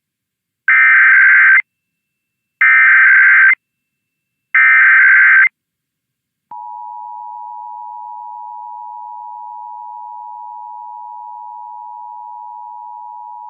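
Emergency Alert System test alert: the SAME header, three one-second bursts of rapid digital warbling a second apart, then, about six and a half seconds in, the steady two-tone EAS attention signal, which holds. This is the opening of an EAS test, which the spoken test message follows.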